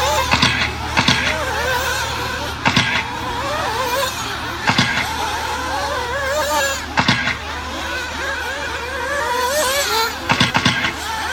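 Several nitro RC buggy engines running at high revs, their buzzing pitch constantly rising and falling with throttle. Short sharp bursts cut in every second or two, about six in all.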